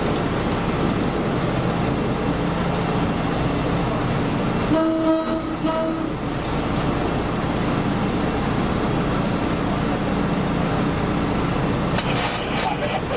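Slow-moving diesel train running with a steady low rumble of engine and wheels on the track; about five seconds in, its horn sounds twice, a longer blast then a short one.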